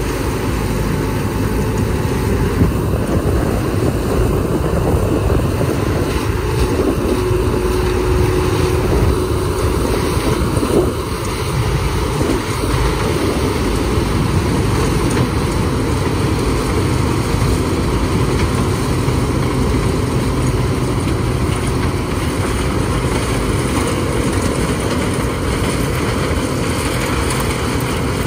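CLAAS Dominator Mega 204 combine harvester running steadily while harvesting corn: the engine and the corn header and threshing machinery make a loud, even drone.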